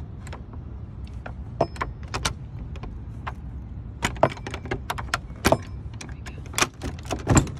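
Irregular metal clicks and rattles from an old iron thumb latch on a wooden door as it is worked open. The clicks come thicker and louder in the second half.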